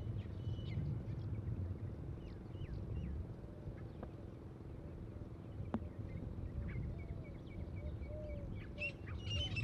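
Birds chirping and calling over a steady low background rumble. A single sharp click a little before six seconds in is a golf club striking the ball on a short chip shot onto the green.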